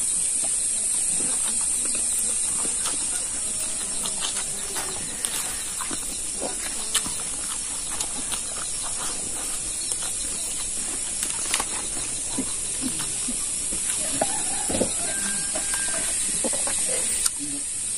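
Close-up eating sounds: chewing, lip-smacking and small mouth clicks from a person eating rice and pork trotter by hand, over a steady high-pitched hiss.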